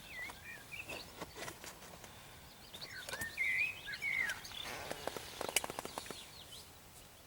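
A songbird singing two short warbling phrases, the second about three seconds in, over outdoor background noise, with scattered sharp clicks and a quick run of clicks a little after the five-second mark.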